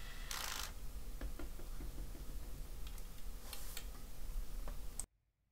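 Light clicks and small knocks of hand tools and a screw being worked into a plastic part, with a short rasping burst about half a second in. The sound cuts out to dead silence near the end.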